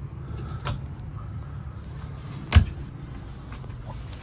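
Overhead wooden cabinet door shutting with one sharp knock about two-thirds of the way through, after a lighter click a little under a second in. A low steady hum runs beneath.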